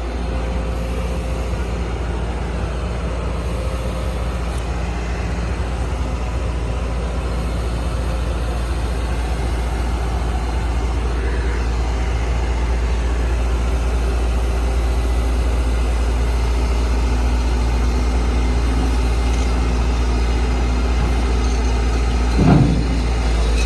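Heavy diesel engine running steadily with a low rumble, with a short louder noise about a second before the end.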